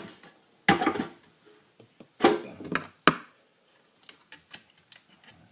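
Handling noise from a tube-radio chassis being worked on: a few short clunks and scrapes about a second apart, a sharp click, then small scattered ticks as parts are moved about.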